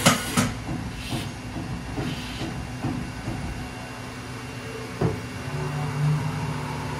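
2012 Haas VF-3SSYT vertical machining center running, its table traversing under the spindle: a steady mechanical hum with scattered clunks, one sharp knock about five seconds in, and a low hum that comes up just after it.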